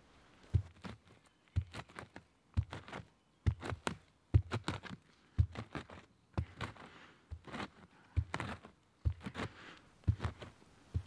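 A thick wooden stick stabbed down into forest soil about once a second, each stroke a dull thud followed by a short crunch of earth and dry leaves, as the ground is broken up by hand to dig a fire pit.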